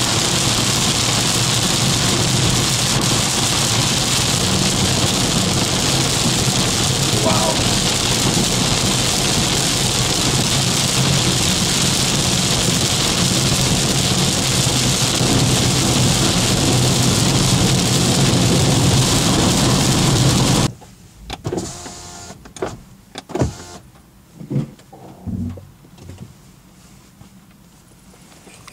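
Steady road and tyre noise with engine hum, heard from inside a moving car on a motorway. It cuts off abruptly about two-thirds of the way through, and a few faint, scattered knocks and clunks follow.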